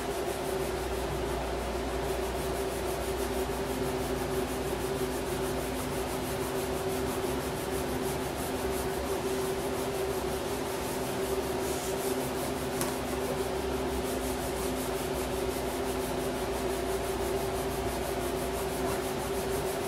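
Fingers rubbing a vinyl decal firmly onto a Can-Am Ryker's plastic side panel to press the adhesive down, a steady unbroken rubbing, over a constant low hum.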